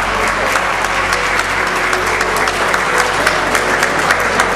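Audience applauding: many hands clapping at an even level throughout.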